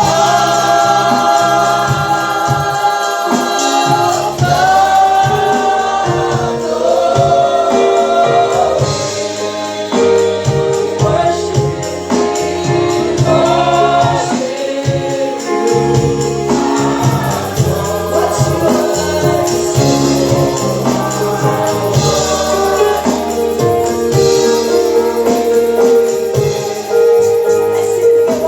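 Gospel worship music: a choir and worship leader singing held, gliding phrases over keyboard and bass, with a tambourine keeping time.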